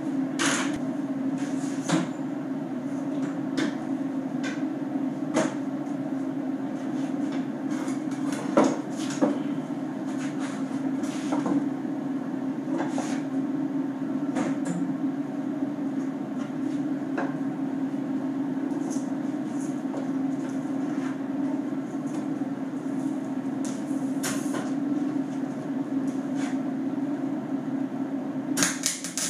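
Scattered metal clanks and knocks as steel clamps are loosened and taken off a tacked steel frame, over a steady electrical hum from the arc welder. Near the end a welding arc is struck and a dense crackling hiss starts as the tack welding begins.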